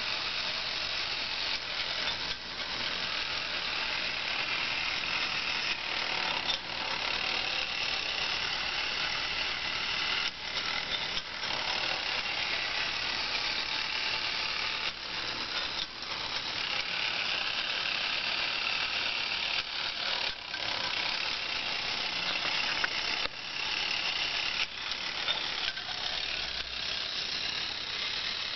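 Clockwork spring motor of an antique German tinplate wind-up billiard player toy running, its original gear train still working, a steady whirring with short breaks every few seconds.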